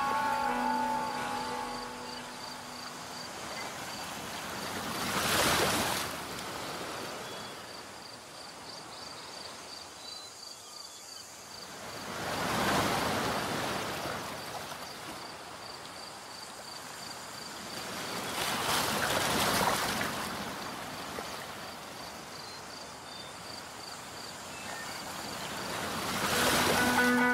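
Waves washing in, an even rushing sound that swells and falls back four times, about every six to seven seconds. A music track fades out in the first couple of seconds and returns at the very end.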